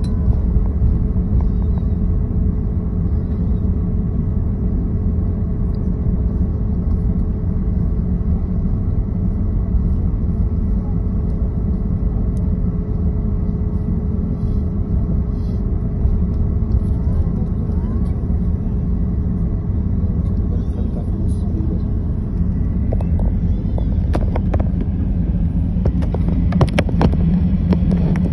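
Cabin noise of a jet airliner taxiing: a steady low rumble from the idling engines, air-conditioning and wheels, with a faint steady hum above it. A few short clicks or rattles come near the end.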